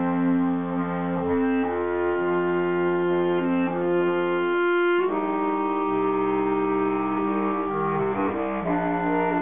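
Bass clarinet quartet playing slow, held chords whose notes shift one by one, with a fuller change of chord about five seconds in.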